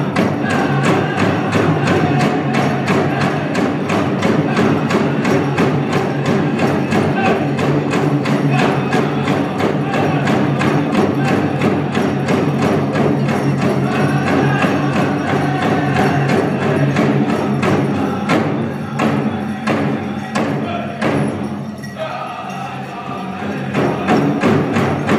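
Powwow drum and singers: a steady, fast drumbeat on a big drum under group singing. About three quarters of the way in, the beat turns to a few spaced hard strikes and the song drops off briefly, then the drumming and singing start up again.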